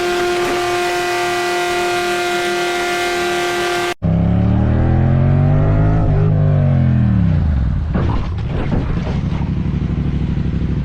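A car horn held in one long steady blast that cuts off abruptly. Then a vehicle engine revs up and falls away, and runs on with a steady pulsing note.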